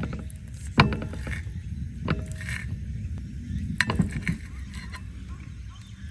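A few sharp clinks of cooking utensils against a frying pan, about a second or more apart, the first the loudest, over a steady low rumble.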